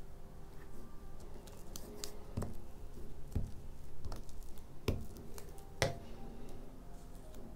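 Torn pieces of watercolour paper handled and pressed down, with a glue stick rubbed over paper. About five sharp knocks come through the middle.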